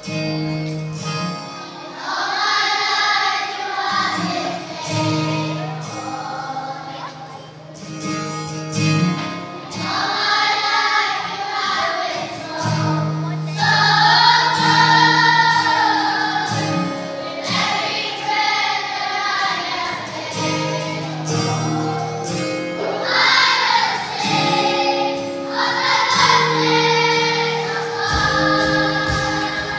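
Children's choir of young girls singing together over a steady instrumental accompaniment; the voices come in about two seconds in.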